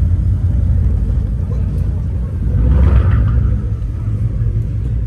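Mercedes-Benz S63 AMG's twin-turbo V8, fitted with a one-off exhaust, rumbling deeply as the car rolls past at low speed, swelling louder for about a second in the middle.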